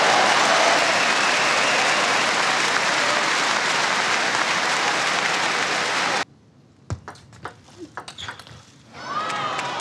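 Arena crowd applauding and cheering loudly after a point, cut off abruptly about six seconds in. Then a table tennis rally: a quick series of sharp clicks of the celluloid ball on the bats and table, and the crowd cheers again near the end.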